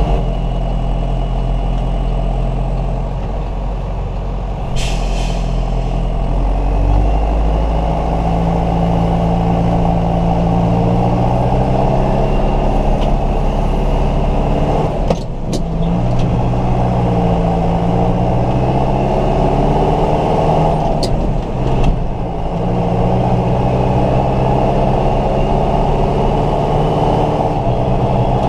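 A tractor's diesel engine heard from inside the cab while driving on the road, running steadily under load with its pitch rising and falling. The engine note breaks briefly twice, about halfway and about three quarters of the way through, as gears are shifted.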